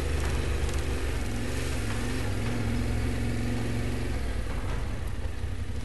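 Yamaha Ténéré adventure motorcycle's engine running steadily under way on a dirt track, with a rushing haze of wind and road noise.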